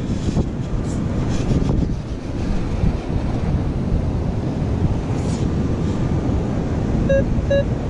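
Wind buffeting the microphone on a beach. Near the end, a metal detector gives a run of short, same-pitched beeps, about two or three a second, over a target.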